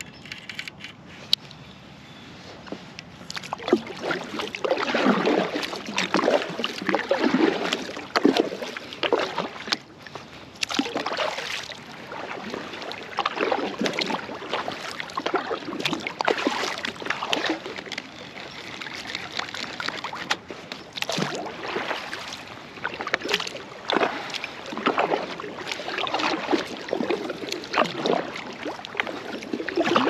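Water sloshing and splashing around an inflatable kayak, coming in uneven swells every two or three seconds from about three seconds in, with scattered light knocks.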